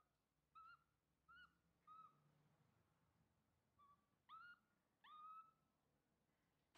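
Baby monkey giving faint, short coo calls: six soft pitched cries in two groups of three, the last two swooping upward and the final one the longest.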